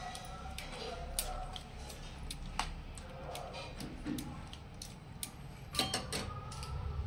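Steel ladle clinking and scraping against a steel mixing bowl as thick uttapam batter is stirred, with a few scattered sharp clicks.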